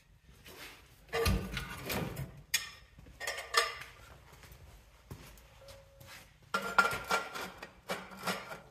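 Metal clanking and rattling as steel exhaust tubing and tool parts are handled on a workbench, in several irregular bursts, some with a brief metallic ring.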